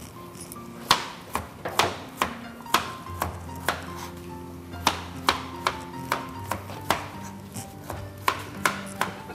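Chef's knife chopping carrot on a cutting board: a string of sharp knocks, about two a second, starting about a second in.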